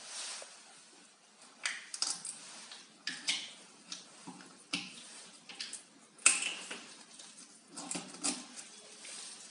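Hands picking at and tearing open the plastic cap seal of an 18.9-litre water bottle: scattered plastic clicks and crinkling scrapes, the loudest a sharp click a little after the middle.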